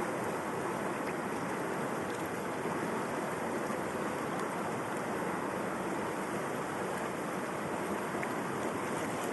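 River water flowing: a steady, even rush of moving water.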